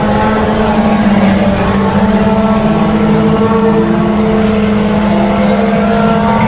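Several off-road race car engines running hard together during a heat race, their pitches overlapping and shifting slightly as the cars circle the track.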